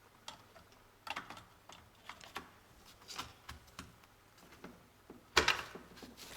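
Small clicks and taps of computer parts and cables being handled and fitted, irregular and scattered, with a louder knock and rustle about five and a half seconds in.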